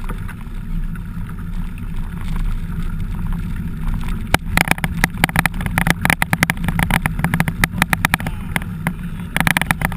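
Mountain bike ridden over rough ground, heard from the handlebar-mounted camera: a steady low rumble of tyres and wind. About halfway through, a dense run of rattles and knocks sets in as the bike jolts over bumps.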